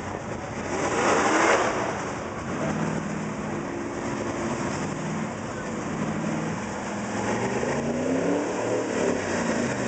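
Dodge pickup's engine revving hard as the truck churns through a mud pit. It surges loudest about a second in, then rises and falls in pitch as the throttle is worked.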